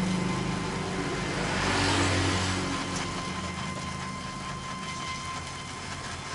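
Steady hiss of a gas welding torch as a motorcycle muffler is welded with filler rod, over an engine running in the background that fades out about halfway through.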